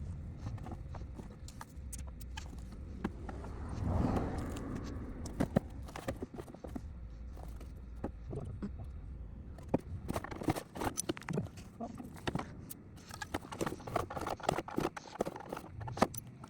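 Scattered clicks and knocks of hand work on the car's front bumper trim as a screw and plastic push pins are taken out, with a short scraping swell about four seconds in, over a low steady rumble.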